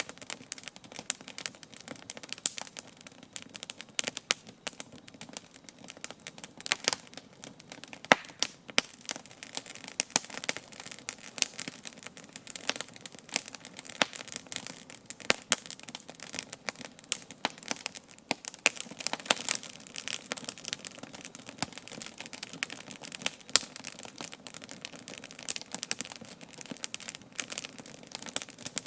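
Wood campfire crackling, with a dense, irregular run of sharp pops and snaps, some louder than the rest.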